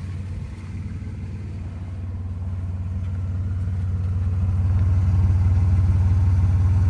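1995 Nissan Maxima's V6 exhaust idling smoothly, a steady low hum that grows louder over the first few seconds and then holds steady. The idle is even, with its intermittent rough idle cleared for now by a rev to about 7,000 rpm.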